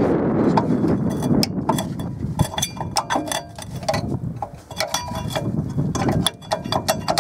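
Screwdriver prying a rear brake pad out of its caliper carrier: repeated sharp metal clicks and clinks with short metallic rings, coming thick and fast from about two seconds in.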